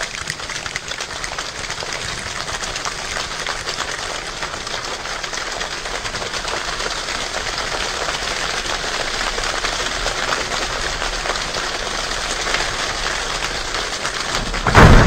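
Steady rain with many fine, close drop ticks, slowly growing louder. Near the end a sudden loud boom breaks in.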